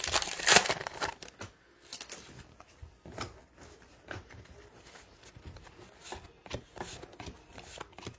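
Topps Allen & Ginter trading cards being handled and flipped through one at a time: a run of light clicks and slides of card against card, loudest in the first second.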